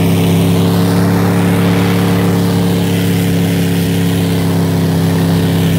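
Snowcat engine running steadily while the machine travels over snow, a loud low drone that holds one pitch.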